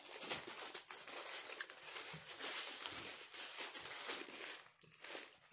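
Paper fast-food sandwich wrapper crinkling and rustling as it is unwrapped and handled. The dense crackle stops shortly before the end and is followed by one brief rustle.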